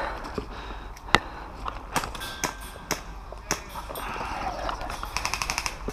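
Scattered sharp cracks of airsoft gunfire across the field. Near the end comes a short full-auto burst from an airsoft electric rifle (AEG), about a dozen shots a second over a steady motor whine.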